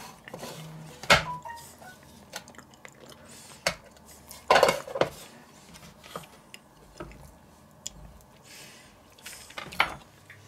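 Table knives and a plastic butter dish knocking and clinking against a wooden cutting board: a few sharp separate knocks, the loudest cluster about halfway through.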